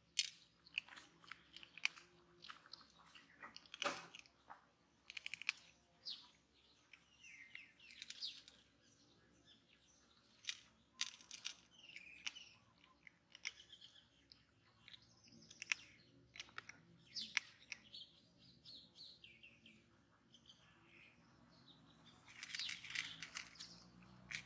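Kitten crunching dry cat kibble: short, sharp crunches coming in irregular clusters. Birds chirp on and off throughout, with a busier run of chirps near the end.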